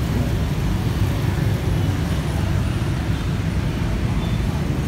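Steady low rumble of vehicles, with no distinct events standing out.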